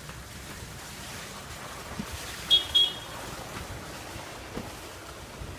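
Car driving slowly along a snowy street, a steady low rumble of engine and tyres, with two short high-pitched beeps about two and a half seconds in.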